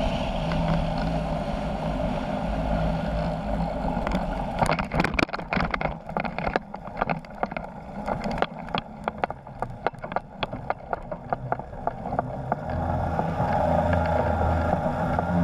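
Polini 250 two-stroke engine of an ultralight trike running steadily with wind noise on final approach; about five seconds in the skis touch down and a quick run of sharp knocks and rattles follows as the trike slides over the snow, then the engine note swells again near the end.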